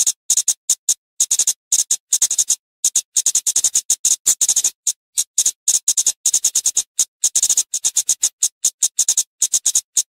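Flowerpecker (cabai) calling: a rapid series of sharp, high-pitched ticking notes in quick runs, broken by short pauses.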